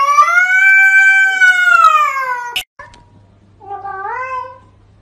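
A silver cat gives one long, loud yowling meow at its own reflection in a mirror, rising and then falling in pitch, cut off abruptly about two and a half seconds in. About a second later comes a shorter, quieter meow with a bending pitch.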